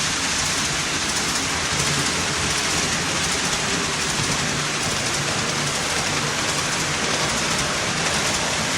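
HO-scale model train of Athearn diesel locomotives and freight cars running along the track: a steady rushing rumble of metal wheels on the rails and the locomotives' motors.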